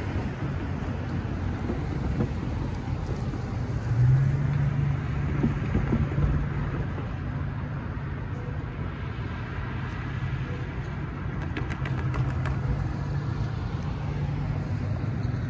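Road traffic driving over a railroad grade crossing: a steady low engine and tyre rumble that swells as cars pass, with a short run of clicks near the end.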